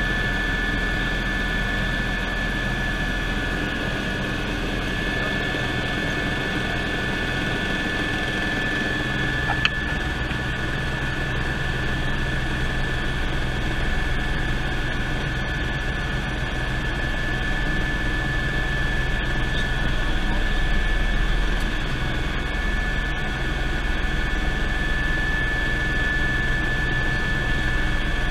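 Eurocopter EC120 Colibri helicopter in cruise flight, its Turbomeca Arrius turboshaft and rotors making a steady noise with a constant high whine. A brief click about ten seconds in.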